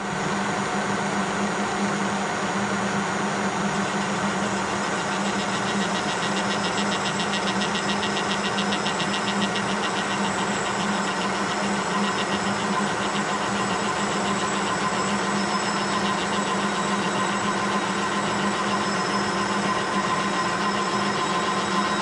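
Kearney & Trecker horizontal milling machine starting up and running steadily, its spindle at 480 RPM with a steady geared hum, while the power feed carries the table and the arbor-mounted milling cutter cuts a spline groove in a Delrin shaft.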